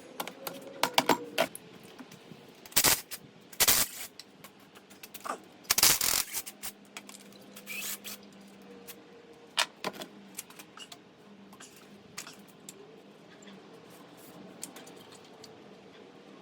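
Metal hand tools and engine parts clinking and knocking during teardown of a Ford 302 Windsor V8: an uneven run of sharp metallic clicks, with the loudest knocks about three, four and six seconds in.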